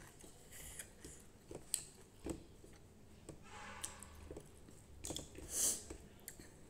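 Eating sounds: small chewing and mouth clicks as rice is eaten by hand, with fingers mixing rice on a steel plate. A short hiss near the end is the loudest sound.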